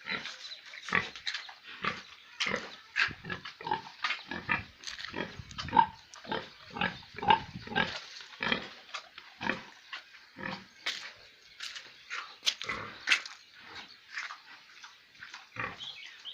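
Three-day-old piglets giving many short, high-pitched squeals and grunts, a few every second in an irregular jumble.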